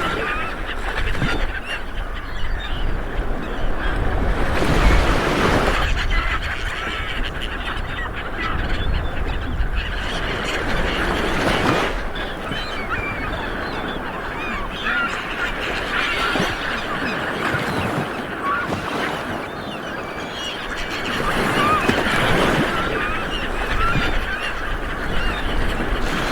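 Small waves washing onto a beach in repeated surges, with many birds calling and chirping over the surf throughout.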